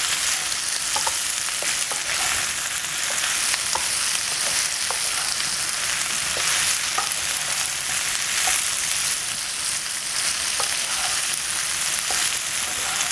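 Spiced potatoes frying in coconut oil in a skillet while being stirred with a wooden spatula: a steady high sizzle with scattered light clicks and scrapes against the pan.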